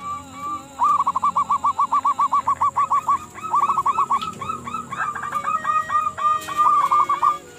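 Zebra doves (local perkutut) cooing in rapid trills of short staccato notes, about six a second, in two runs of roughly two and a half and four seconds. A second, higher voice overlaps during the last two seconds or so.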